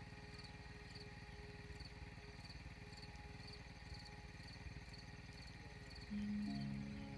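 Insect chirping in short, evenly spaced high pulses over a low rumbling background, with soft held tones of background music. A louder, low sustained note comes in near the end.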